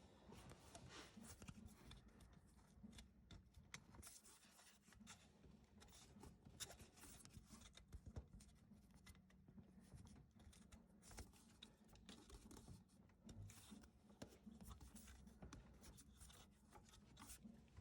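Faint, irregular rubbing and light clicks of hands working a rubber drive belt over the engine's pulleys and seating it in the grooves.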